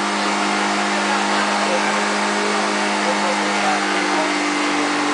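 Motorcycle engine running steadily at a constant pitch.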